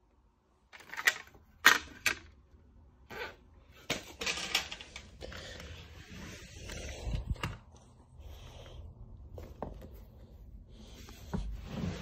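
Handling noises: a few sharp knocks in the first two seconds as a metal licence plate is picked up, then rustling and soft scuffs as things are moved about on the floor.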